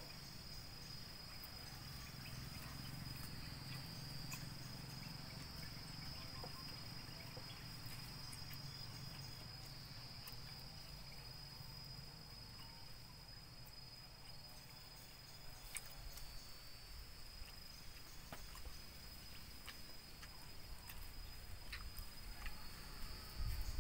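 Insects trilling in a steady high chorus that swells and fades every few seconds. A low hum sits under it for about the first half, and a few soft clicks come later.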